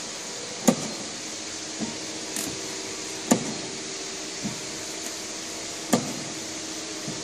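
SAVEMA feeder-conveyor with an SVM 53I thermal transfer printer running: a steady motor hum with a loud clack about every two and a half seconds and lighter clicks in between, the repeating cycle of the machine feeding and printing.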